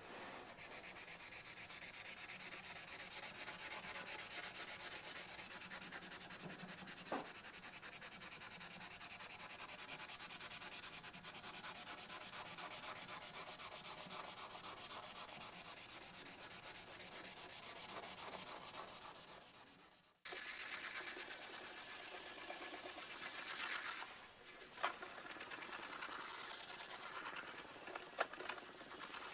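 Scotch-Brite pad scrubbing back and forth over the rusty steel blade of an 1860s Disston hand saw, scouring off rust: a steady scratchy hiss that breaks off for a moment twice in the second half.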